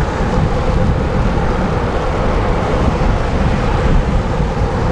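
Steady wind rush buffeting the microphone with tyre hiss on wet pavement, from a bicycle riding at about 20 mph in the rain.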